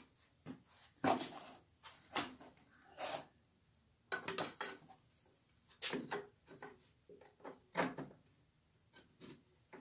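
Irregular metallic clunks, knocks and scrapes of parts being handled and fitted inside a Fordomatic two-speed transmission case, with the sharpest knocks about a second in and again near the end.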